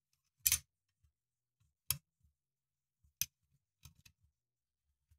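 Sharp metallic clicks of large Knipex Cobra water pump pliers being set onto and worked against a seized part of a lathe compound held in a steel vise: a loud click about half a second in, single clicks near two and three seconds, and a quick double click near four seconds.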